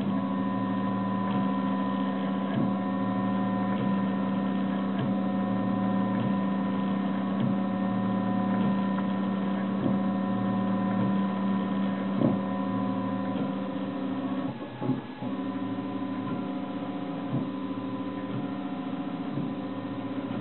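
RepRap Prusa Mendel i2 3D printer running a print: a steady multi-toned hum with soft, regular ticks about once a second, and a brief rustle about two-thirds of the way through.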